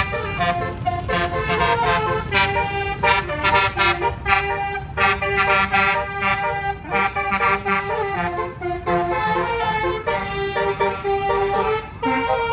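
A bus's basuri multi-tone musical horn playing a fast melody of short and held notes, over a low rumble.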